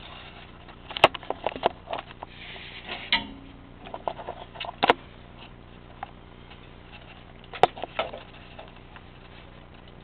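Scattered sharp clicks and light taps, with a brief scrape about three seconds in: handling noise at a sheet-metal vent pipe and its handmade flange.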